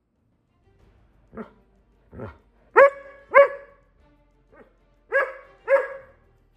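Rough collie demand-barking in a tantrum. Two lower, grumbling calls come first, then sharp, high barks in two pairs, with a short yip between the pairs.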